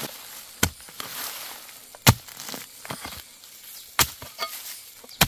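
Blade chopping into bamboo shoots: four sharp chops about a second and a half apart, the second the loudest, with light rustling in between.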